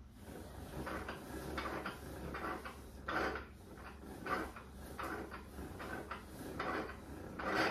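O-Cedar spin mop being wrung in its bucket by pumping the foot pedal, which spins the mop head in the plastic wringer basket: a whirring, clacking rattle that comes in strokes about once a second, the last near the end the loudest.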